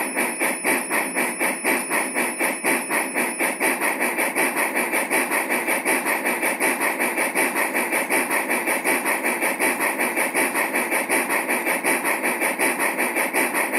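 Model railroad sound as a freight train passes a grade crossing: a rapid, even clicking of about five a second that keeps up while the cars go by and cuts off suddenly once the train has cleared.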